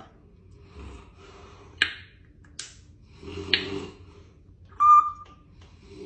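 African grey parrot making a few sharp clicks and a soft low mutter, then one short whistled note about five seconds in, the loudest sound.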